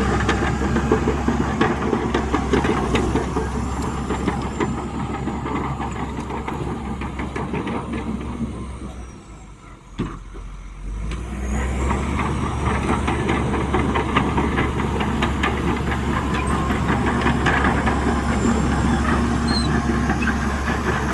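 Heavy diesel engine of earthmoving machinery running steadily under work. About halfway through the sound drops away to a lull, with a single sharp click, then comes back at full level.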